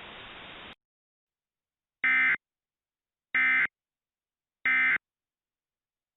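Emergency Alert System end-of-message data bursts: three short, identical buzzing digital squawks about 1.3 seconds apart, the signal that the alert has ended. A low hiss cuts off just under a second in, before the first burst.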